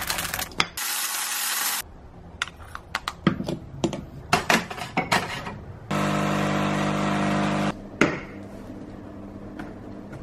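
Coffee being made: an electric blade coffee grinder runs in two short bursts, followed by a series of clicks and clatters of handling. An espresso machine's pump then hums steadily for almost two seconds as it brews into a mug, and it ends with one sharp knock.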